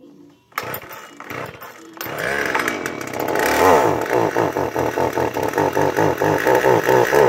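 Old gas chainsaw's two-stroke engine starting up and running unevenly, its note pulsing several times a second; the saw doesn't work too good.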